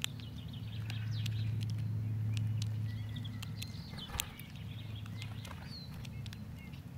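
Common blackbird foraging on gravel, with scattered sharp clicks and ticks from its pecking, one louder knock about four seconds in. Short chirps of small birds sound over a steady low hum.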